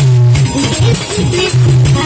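Background music with a steady heavy bass line.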